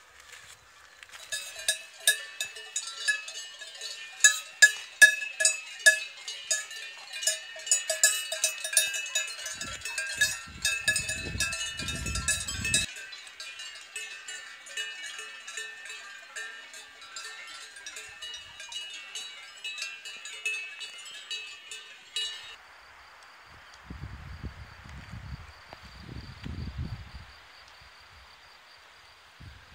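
Cowbells on grazing livestock clanking irregularly and ringing, many strikes in close succession. About 22 seconds in they stop abruptly, leaving a faint steady hiss with a thin high tone and a few low rumbles.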